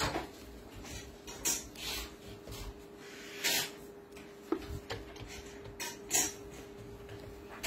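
Screwdriver working the end screws of a copier developer unit: a few short scrapes of metal on plastic, spaced a second or two apart, with one sharp click about halfway through. A steady faint hum runs underneath.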